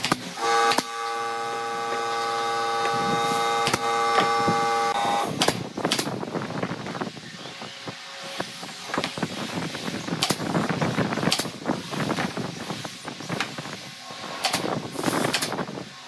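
Pneumatic brad nailer firing sharp single shots into a wooden ring frame, about seven in all, spread out with wooden pieces handled and knocked in between. A steady machine whine with several tones runs for the first five seconds, then stops.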